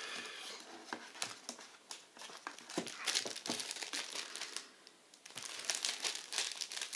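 Glossy plastic sleeve of a microfiber lens-cleaning cloth crinkling as it is handled and turned over, in irregular crackles that pause briefly about five seconds in.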